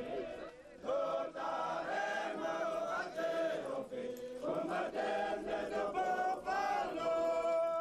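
A large group of men singing a marching song in unison as they march, one phrase after another, with short breaks about half a second in and around four seconds in.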